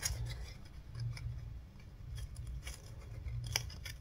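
Paper strip and cardboard being handled and pressed together: scattered light crinkles and sharp ticks, the sharpest near the end, over a steady low hum.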